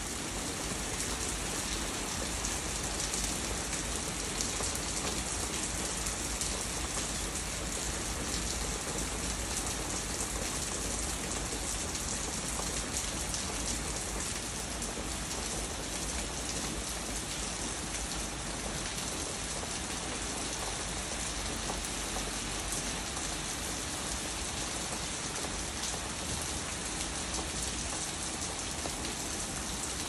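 Steady rain storm pouring down: an even, unbroken hiss of rain with many small drop impacts.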